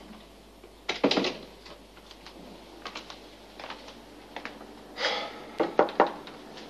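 A wooden door thuds shut about a second in, followed by light scattered clicks, then knuckles knocking a few times on a wooden door near the end.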